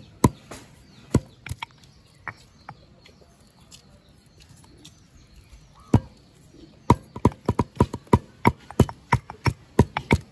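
Stone pestle pounding spices in a stone mortar: sharp, hard knocks about three a second. The knocks thin out and pause for a few seconds in the middle, then a fast run of strikes resumes near the end.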